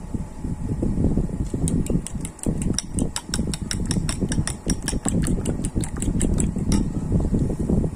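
Chopsticks beating eggs in a bowl: a rapid clicking of about six strokes a second that starts about a second and a half in and stops near the end. Underneath is a steady low rumble.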